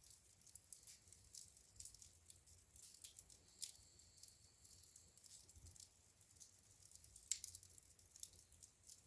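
Fire in a fireplace crackling faintly, with frequent small sharp pops at irregular intervals and one louder pop about seven seconds in.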